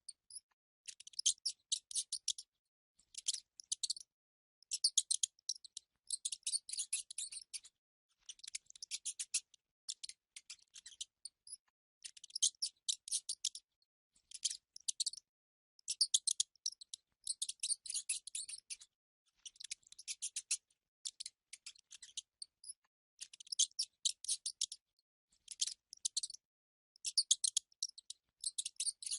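Mice squeaking in rapid high-pitched chattering bursts, each a second or two long, repeating with short gaps.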